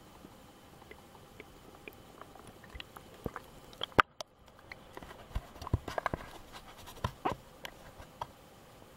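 Water sounds picked up by a submerged camera in a current: a faint hiss with scattered soft clicks, then a sharp knock about four seconds in as the camera breaks the surface, followed by a run of splashing clicks and knocks.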